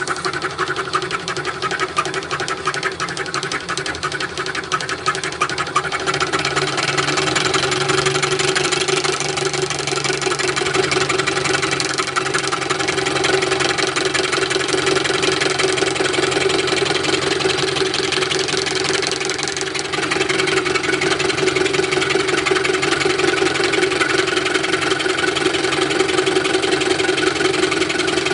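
Bench drill-milling machine running steadily with a dense, rapid mechanical rattle over a steady hum, growing louder about six seconds in and again about twenty seconds in.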